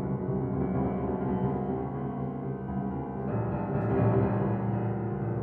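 Solo grand piano playing dense, rumbling chords in the low register. The bass grows heavier and louder about three seconds in.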